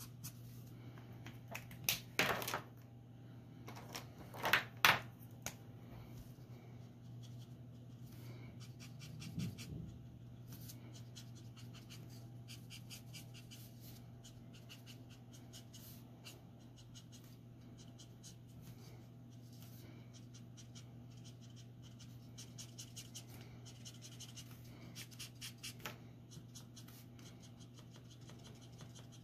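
Copic marker nib rubbing quickly over drawing paper in short scratchy strokes, coming in quick runs, with a few louder strokes near the start. A faint steady hum lies underneath.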